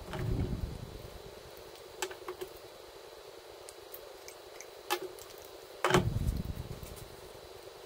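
Light clicks and knocks of gloved hands handling plastic cups of dye on a towel-covered bench, with a duller thud at the start and a louder one about six seconds in.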